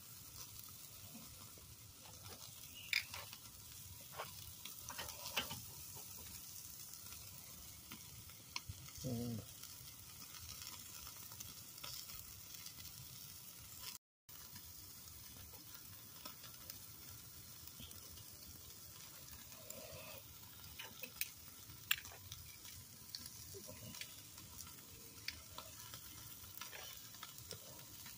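Steaks sizzling on a charcoal kettle grill grate: a steady faint hiss with scattered sharp crackles and pops.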